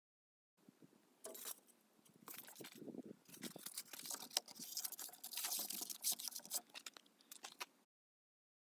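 Irregular scraping, rustling and light taps of a thin plywood panel being held and shifted by hand against the van's side wall, with handling noise close to the phone's microphone. The sounds come in uneven clusters and stop shortly before the end.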